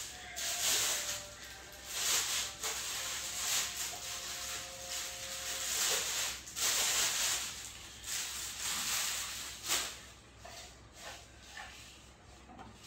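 Clear plastic wrapping crinkling and rustling in irregular bursts as it is pulled off a studio light, thinning to a few faint crackles over the last few seconds.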